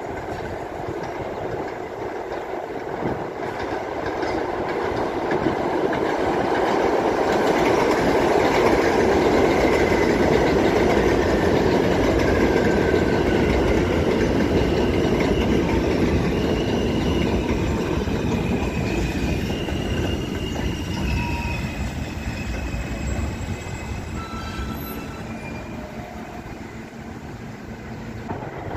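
A New York City subway train running along an elevated steel track structure. Its rumble swells to a peak about ten seconds in and then eases off, with high metallic squeals in the second half.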